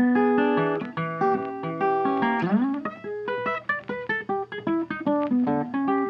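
Background guitar music: plucked guitar notes and chords, with one note sliding up in pitch about two and a half seconds in, then quicker single notes.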